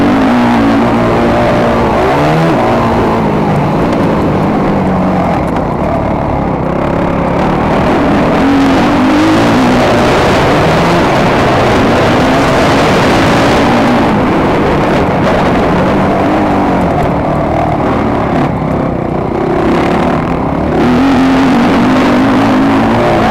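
Motocross bike engine, a Yamaha YZ250F four-stroke single, revving up and down over and over as it is ridden hard round the track.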